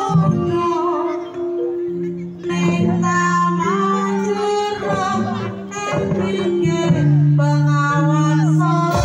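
Live East Javanese jaranan music: a voice singing over the troupe's instruments, with long held notes that step from pitch to pitch.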